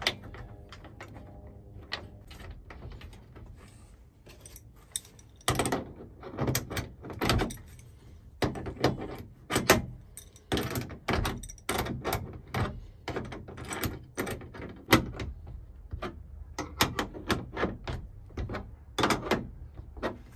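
Irregular metal clicks and knocks of an adjustable wrench working bolts on steel bed-support hardware in an aluminium L-track, as the bolts are snugged up. The clicks start about five seconds in and come thickly from then on.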